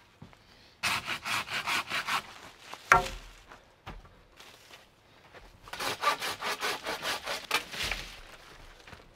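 Hand saw cutting bamboo poles: two bouts of quick back-and-forth strokes, about three or four a second, with a single sharp knock about three seconds in.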